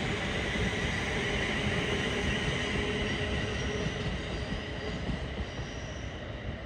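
Train moving on the track: a continuous rumble of wheels and rails, with steady high-pitched tones above it, easing off slightly near the end.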